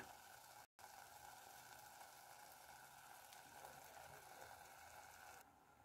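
Near silence with faint sizzling of egg-and-milk batter setting in ghee in a pan.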